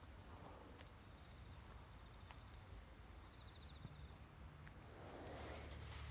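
Faint insect song, a very high-pitched chirp repeating about two to three times a second, over a near-quiet background with a low rumble that grows near the end.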